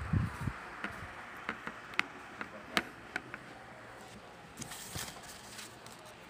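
Fingers handling a hard plastic coin grading slab, making a scatter of sharp light clicks and taps over the first few seconds, then a brief rustle.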